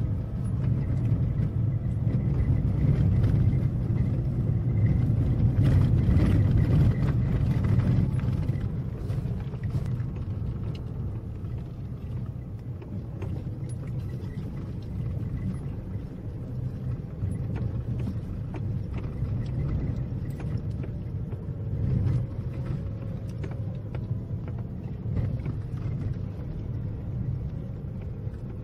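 Car driving on a rough dirt road, heard from inside the cabin: a steady low rumble of engine and tyres with scattered clicks and rattles from the bumpy surface. It is louder for the first several seconds, then quieter.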